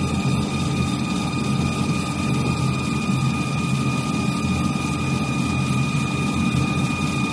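Automatic axe-handle sanding machine running, its sanding belts working four turning wooden handle blanks. It makes a steady mechanical hum with a constant high whine over it.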